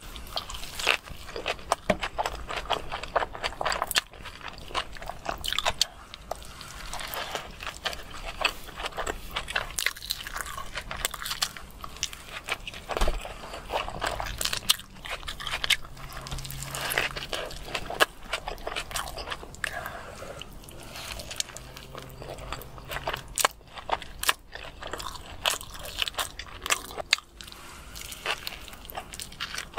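Close-miked chewing and biting of a burger: a dense, irregular run of crunchy, crackly mouth sounds.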